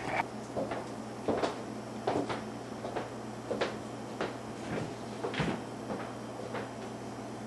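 A series of irregular light knocks and taps, about eight in all, over a steady low hum.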